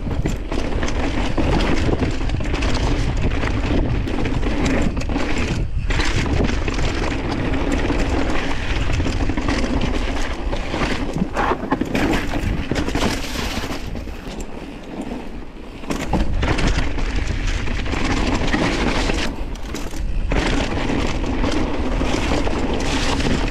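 Mountain bike ridden over rock slab and gravel trail: tyres rolling and the bike rattling and clattering over bumps, with wind buffeting the camera microphone. It quietens for about two seconds past the middle.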